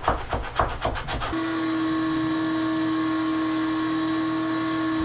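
Hand sanding of painted wood in a corner overhead, quick back-and-forth rubbing strokes about six a second. About a second in, the strokes give way to a steady held whistle-like tone with overtones that lasts the rest of the time.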